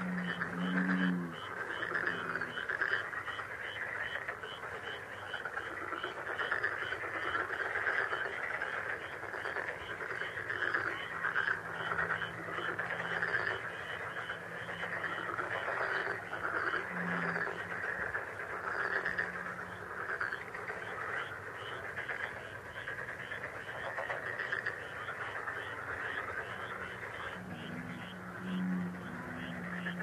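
Countryside ambience: a dense, steady, pulsing chorus of calling animals, with short low calls from a bird at the start, once in the middle and several times near the end.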